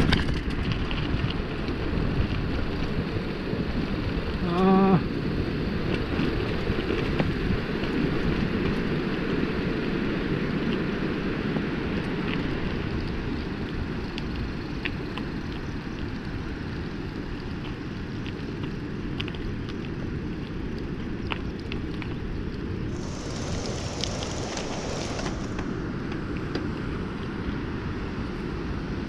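Wind on the microphone with the rumble and rattle of a mountain bike rolling downhill over rough concrete. The noise eases off as the bike slows nearly to a stop. About five seconds in there is a brief tone of about half a second.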